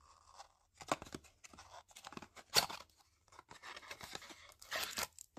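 Small cardboard box being opened and handled: scattered scrapes and sharp clicks of the card stock, then a longer rustle near the end as a card in a plastic sleeve is drawn out.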